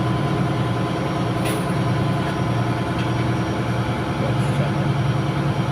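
Steady drone of a ship's engine-room machinery running, with a faint sharp click about a second and a half in.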